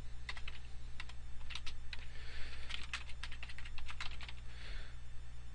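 Typing on a computer keyboard: a run of irregular keystroke clicks, in quick clusters with short gaps, as commands are entered.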